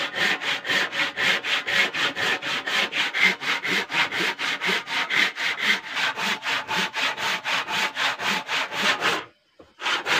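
Handsaw crosscutting a log of sal wood in quick, even back-and-forth strokes, about four or five a second. The sawing stops about nine seconds in and starts again near the end.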